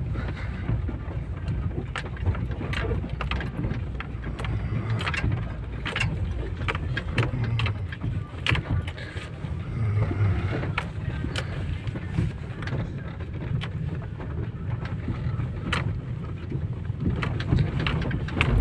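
Opel Zafira driving over a rough road, heard from inside the cabin: a steady low rumble of tyres and engine with irregular knocks and rattles, which the driver calls drumming. The driver takes the drumming for the rear door left unlatched.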